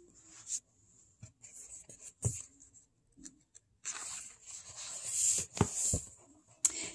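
Paper page of a picture book being turned by hand: scattered rustling and sliding of the paper, busiest in the second half, with a few sharp taps as the page is handled and laid flat.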